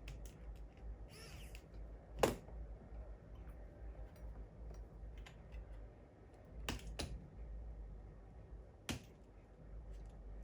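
Scattered sharp clicks and taps of small tools and laptop parts being handled during disassembly, the loudest about two seconds in and a close pair near seven seconds. A short scraping rustle comes just before the loudest click, over a steady low hum.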